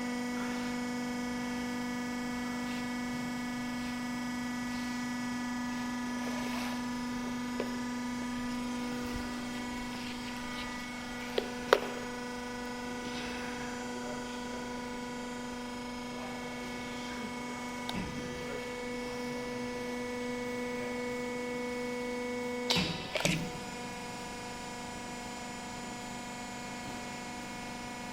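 Dumeta 3-axis hydraulic welding positioner running: a steady motor-and-pump hum with several fixed tones. There are two sharp clicks a little past ten seconds in, and a clunk about 23 seconds in, after which the hum changes and some of its tones drop out.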